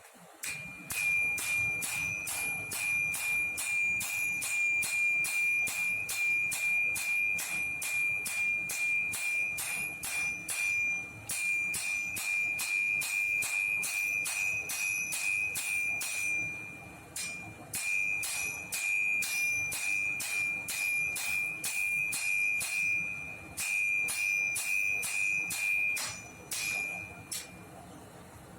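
Hand hammer striking hot axe steel on an anvil, about two to three blows a second in runs broken by short pauses, the anvil ringing on a high note between blows. This is the rough shaping of the axe blade.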